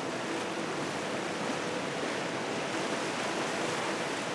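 Steady rushing of big whitewater in a Class 4 river rapid, a continuous even wash of breaking waves.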